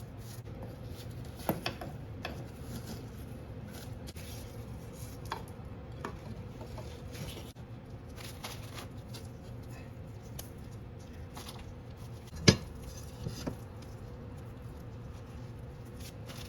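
Scattered light clicks and taps of tiles and tools being handled during tile setting, with one sharp knock about twelve seconds in, over a steady low hum.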